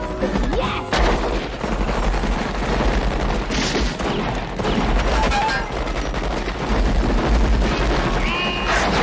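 Film soundtrack of a shootout: sustained rapid submachine-gun fire, a dense run of shots starting about a second in and continuing throughout.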